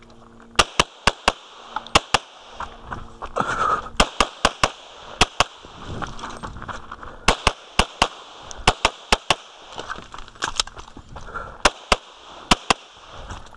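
Glock 24 pistol in .40 S&W fired in a fast string of about two dozen sharp shots, mostly in quick pairs with short pauses between the groups.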